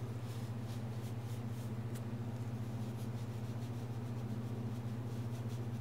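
Dry moulding sand scraping and rustling faintly as hands press a foam pattern down into it in a wooden box, over a steady low hum.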